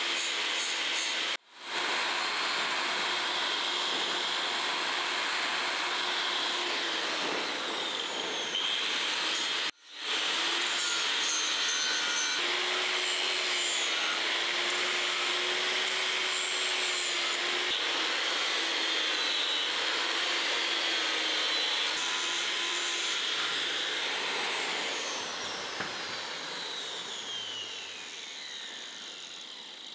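Angle grinder with an abrasive disc grinding the steel of a forged knife blade, its motor whine wavering as the disc is pressed onto the blade. Near the end the grinder winds down with a falling whine.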